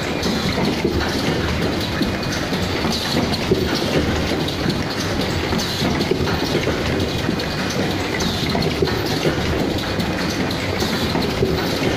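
Automatic cup mask production line running: a steady, dense mechanical clatter of many small, irregular clicks and knocks from its working stations and conveyor.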